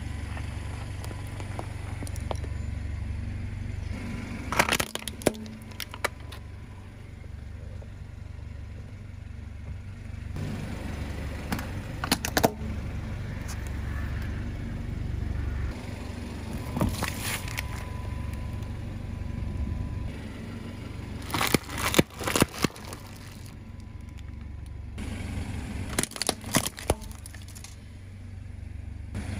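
A car tyre rolling slowly over small plastic and metal objects (a doll, a toy mouse, metal graters), crushing them with sharp cracking and crunching about five times. Under it runs the steady low rumble of the car's engine idling.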